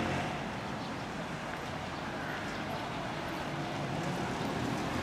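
Steady outdoor town ambience: a low rumble and hiss of distant traffic, with no distinct sound standing out.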